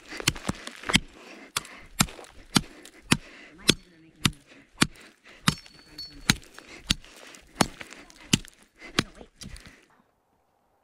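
An axe chopping into frozen lake ice, one sharp strike about every two-thirds of a second in a steady rhythm, stopping shortly before the end. The chopping cuts a hole through the ice for fishing.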